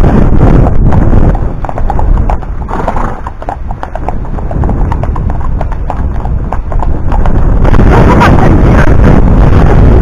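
Horses' hooves clip-clopping at a walk on a tarmac road, several horses together, with wind buffeting the microphone near the start and again for the last couple of seconds.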